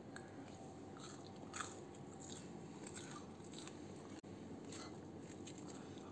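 Crispy breadcrumb-coated crinkle-cut oven fries crunching: a string of short, irregular, quiet crunches, the sign of a crisp-baked coating.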